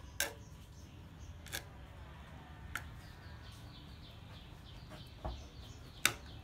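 A handful of sharp, separate clicks, the loudest near the end, with a dull thump shortly before it, over faint high bird chirping.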